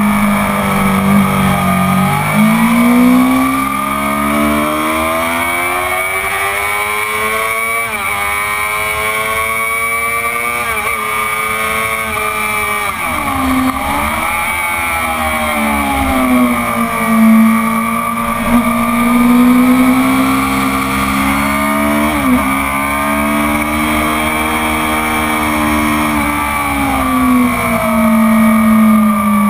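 Stock 2004 Honda CBR600RR's inline-four engine at racing speed, its pitch climbing and falling over and over, with quick dips at gear changes, heard from on board with wind rush on the microphone.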